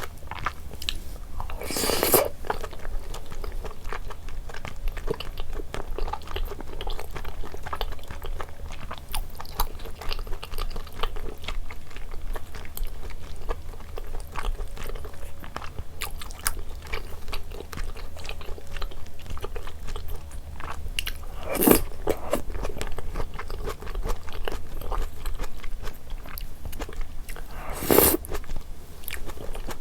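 A person chewing and biting into rosé jjimdak (braised chicken) with thick Chinese glass noodles, with wet crunching mouth sounds and three louder bursts: about two seconds in, near twenty-two seconds, and near the end.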